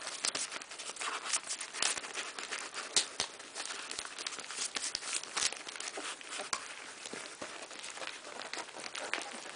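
A litter of three-week-old Cardigan Welsh Corgi puppies eating ground beef off a plate: a dense, irregular stream of small smacking and licking clicks, with the newspaper under them crinkling as they jostle.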